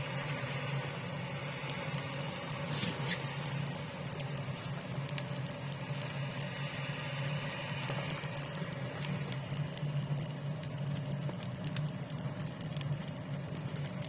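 Rain pattering on tent fabric: a dense, even patter of small drops with scattered sharper ticks, over a low steady hum.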